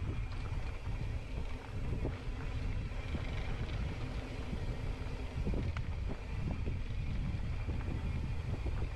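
Wind buffeting the microphone with a steady low rumble while a mountain bike rides a dirt trail, with scattered clicks and rattles from the bike and tyres.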